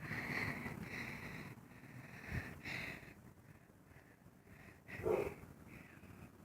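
Quiet breathing and sniffing close to the microphone, in a few soft breaths, with a short louder breath about five seconds in.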